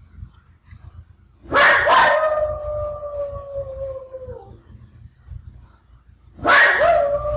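A dog howling twice. Each howl starts sharply and settles into a long held note that sinks a little in pitch. The first lasts about three seconds, and the second begins near the end. It is a separation howl: her life-long companion dog has just been taken away.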